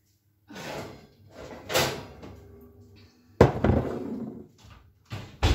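Kitchen oven being worked with an oven mitt: a door opening and a metal baking tray clattering, then two sharp knocks, the loudest about three and a half seconds in and another near the end.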